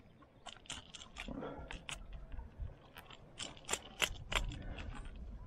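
Pliers unhooking a lure from a barramundi's mouth, clicking and clacking irregularly on the hooks and lip grip, with a cluster of sharper clicks near the end.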